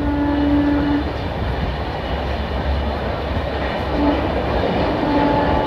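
Passenger train running on the track with a steady rumble. A held horn tone sounds at the start until about a second in, briefly about four seconds in, and again near the end.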